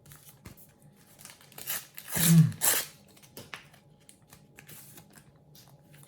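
A sticker packet's wrapper torn open with one loud rip about two seconds in, amid light crinkling and rustling of paper and stickers being handled.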